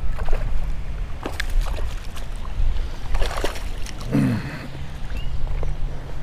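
A small hooked bass splashing and thrashing at the water's surface as it is reeled in to the bank, in bursts around three to four seconds in, over a steady low wind rumble on the microphone.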